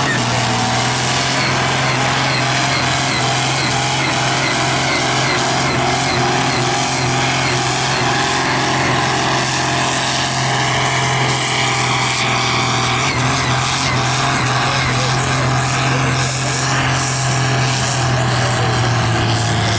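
Ford tractor's diesel engine running hard at a steady high speed under full load while it drags a tractor-pulling sled, its exhaust note holding level.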